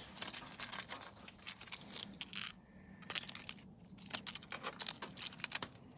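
A small grinder and its sanding pads being handled: light, irregular clicks and rattles of small hard parts.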